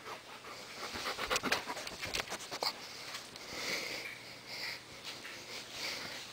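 Siberian husky panting during play with a plush toy, with a quick run of clicks and scuffles about one to three seconds in.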